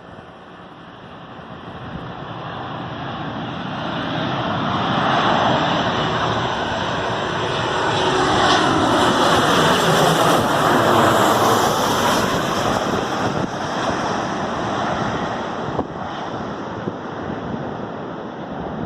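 Jet airliner flying low overhead. The engine noise builds over the first few seconds, is loudest about halfway through with a whine falling in pitch as it passes, then eases off toward the end.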